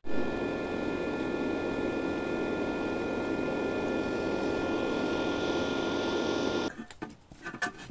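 Cooling fan of a Makisel Smart-350 mini inverter welding machine running steadily while the welder is powered on, a whooshing rush with a faint high whine over it. It stops abruptly near the end, followed by a few faint clicks.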